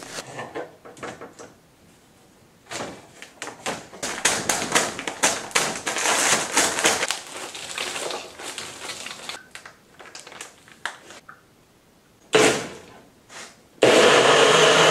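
A plastic bag crinkles and rustles as its contents are poured into a blender cup, then a brief clatter as the cup is fitted to the base. About a second before the end, a NutriBullet blender starts and runs loudly and steadily.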